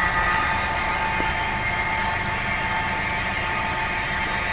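Dixon CQ6236×1000 engine lathe running on a trial run without cutting. The headstock gear train gives a steady hum with a few held high tones.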